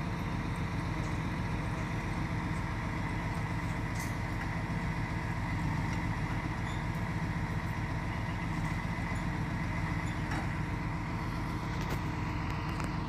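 Engine of a truck-mounted crane running steadily, an even low mechanical hum.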